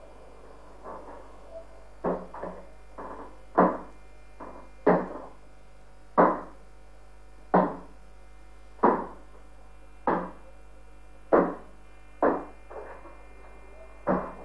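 Tower clock bell of St. Mary's Basilica in Kraków striking the hour of noon, relayed over FM radio. About ten evenly spaced strokes, roughly one every 1.3 seconds, each ringing briefly, with a few lighter strokes among the first ones and a steady hum underneath.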